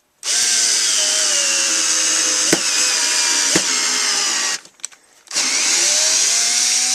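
Ryobi Tek4 4-volt lithium-ion cordless screwdriver running on its slow speed, driving a screw into wood. The first run of about four seconds slows slightly under load and has two sharp clicks in it. After a brief stop it starts again with a rising whine.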